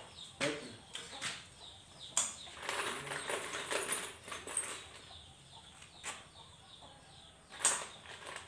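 Scattered metal knocks and clanks from hand work on a small motorcycle engine, with a stretch of rustling in the middle. The two loudest knocks come about two seconds in and near the end.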